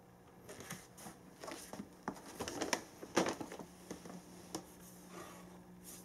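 Norwegian Forest Cat's paws tapping and scuffing on a wooden floor as it spins and pounces: an irregular run of light taps and scrapes, busiest in the middle.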